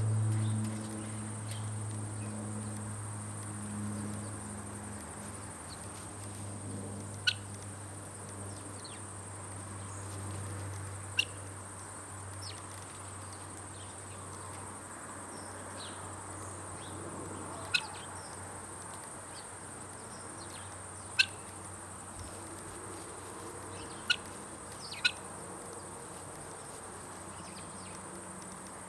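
Six short, sharp bird chirps at irregular intervals over a steady high-pitched insect buzz. A low hum fades out in the first few seconds.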